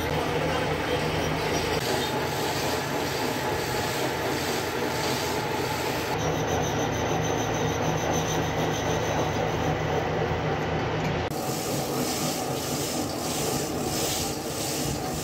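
A grinding wheel grinding a spinning steel gearbox shaft held in a lathe chuck: a steady harsh hiss over the hum of the lathe and grinder motors. About eleven seconds in, the low hum drops away and a rhythmic rubbing, about two strokes a second, takes over.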